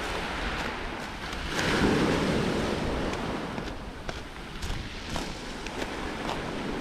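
Small waves washing onto a beach of small pebbles and gravel, surging about a second and a half in, with wind on the microphone and scattered light clicks.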